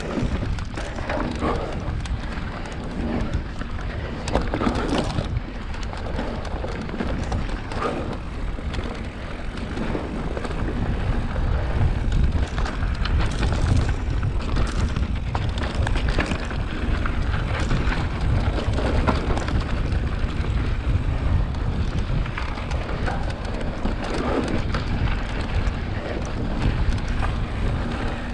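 Mountain bike riding a dirt trail: wind buffeting the GoPro's microphone over the rolling tyres, with frequent short clatters as the bike rattles over bumps.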